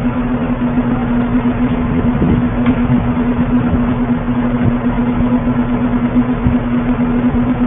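Steady hum at one constant pitch over an even hiss, with a few faint knocks.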